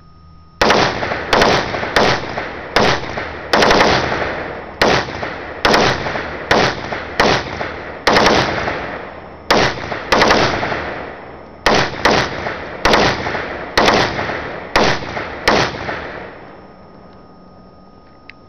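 Olympic Arms AR-15-type carbine in .223/5.56 firing through a bump-fire slide stock: a long run of sharp shots, some single and some in quick pairs, at uneven spacing, each trailing a long echo. The firing stops about two seconds before the end.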